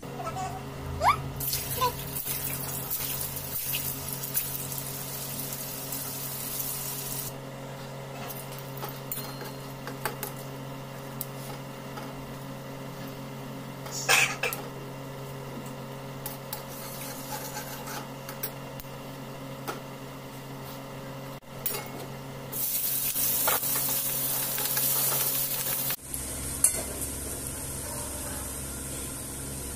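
Hot oil sizzling in a metal kadai on a gas stove, with a metal spatula scraping and knocking against the pan. The sizzle swells loudly twice, near the start and again a few seconds before the end, over a steady low hum.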